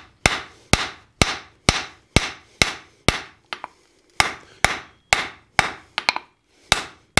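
Hand hammer striking red-hot coil-spring steel on an anvil, about two blows a second, drawing out a two-sided taper. The blows stop briefly about three seconds in, then resume, with a couple of quick double strikes near the end.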